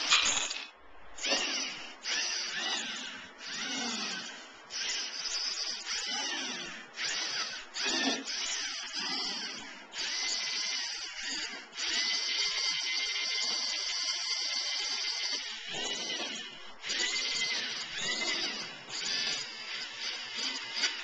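LEGO Mindstorms NXT robot's servo motors whining through their plastic gear trains, running in short spells that start and stop every second or few, the pitch bending up and down as the motors speed up and slow down. A sharp knock right at the start.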